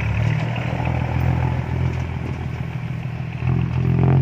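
Heavy diesel engine running steadily at close range, its low note swelling louder near the end.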